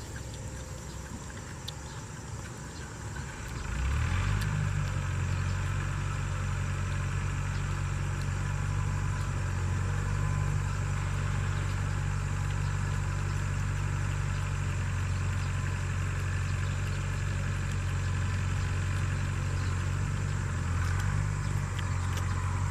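An engine idling steadily, a low even hum that comes in about three and a half seconds in and holds.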